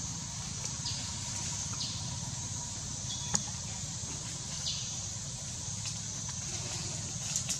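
Outdoor forest ambience: a steady high hiss over a low rumble, with a few brief high chirps and sharp clicks, the loudest click about three seconds in.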